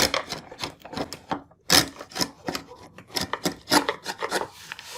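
Hand chisel paring and breaking away wood waste from the face of a tenon, in a quick irregular series of short scraping strokes.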